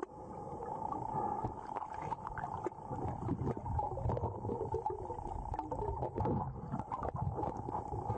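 Muffled underwater sound heard through a waterproof camera housing: gurgling and rushing water with a steady hum and many small clicks and taps.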